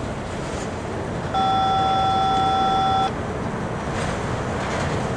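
Rumble of a long CSX freight train's cars rolling past. A steady beep-like tone of several pitches sounds for under two seconds around the middle.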